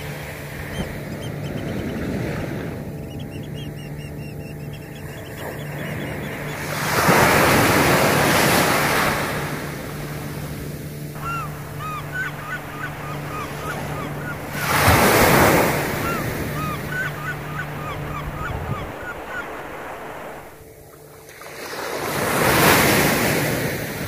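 Sea waves breaking on a beach three times, each swelling to a loud rush of surf and easing back to a softer wash of foam in between.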